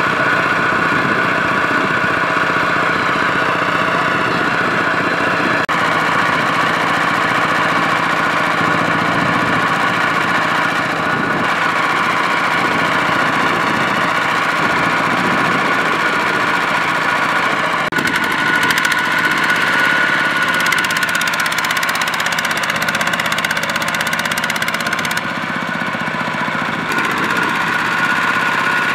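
Two-wheel walking tractor's single-cylinder diesel engine running steadily under load as it hauls a trailer of rice sacks through paddy mud, with a dense knocking beat.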